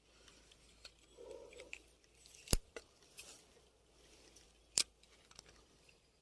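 Close handling noise: soft rustling and small clicks, with two sharp clicks about two seconds apart.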